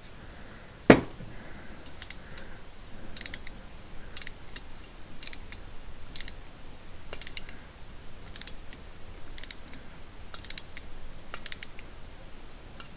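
One sharp knock about a second in, then short metallic clicks about once a second as an M5 hand tap is turned in its tap wrench, cutting into a drilled-out broken stud hole in an air-cooled cylinder head.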